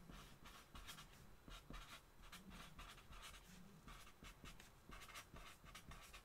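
Faint squeaks and scratches of a felt-tip marker writing words on paper in short, irregular strokes, ending with a longer underlining stroke.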